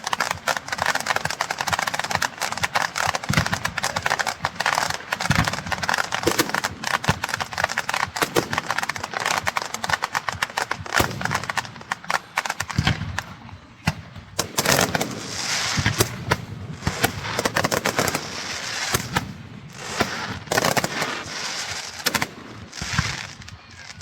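Strings of firecrackers going off in a dense, rapid crackle of bangs, with a few deeper booms mixed in; the crackle thins into separate bursts over the last few seconds.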